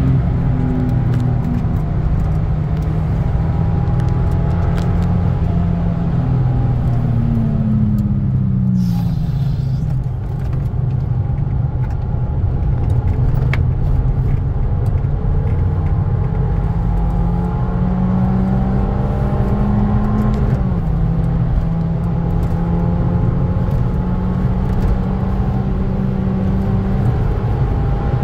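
Abarth 595's turbocharged 1.4-litre four-cylinder engine heard from inside the cabin at speed, its revs rising and falling, with a dip about nine seconds in and a sudden drop about twenty seconds in, over steady road and tyre rumble.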